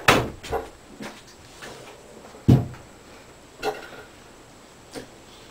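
Scattered knocks and clicks of small craft items being handled and set down on a table, with one louder dull thump about two and a half seconds in.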